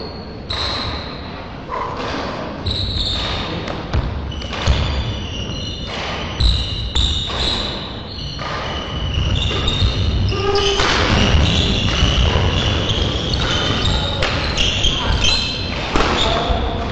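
Badminton being played on an indoor court: sharp racket strikes on the shuttlecock, many short high squeaks of shoes on the court floor and thudding footsteps, echoing in a large hall.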